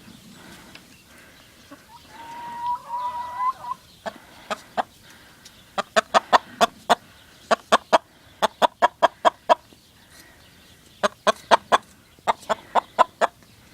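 Chickens clucking: a drawn-out call about two seconds in, then runs of rapid, short, sharp clucks, several a second, in repeated bursts.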